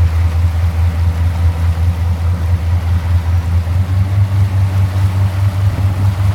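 Motorboat engine running steadily while towing a tube, its low hum rising slightly in pitch about four seconds in as the boat speeds up.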